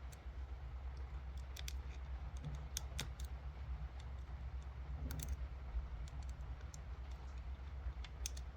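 Small, irregular clicks and ticks of a lock pick and tension wrench working the pins inside a cheap motorcycle lock, over a low steady hum.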